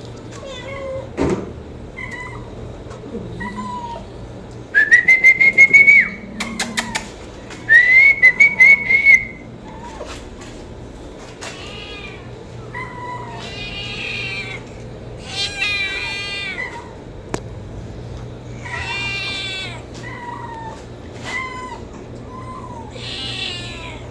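Kitten meowing again and again, with two loud, high, drawn-out cries about five and eight seconds in and shorter meows after them.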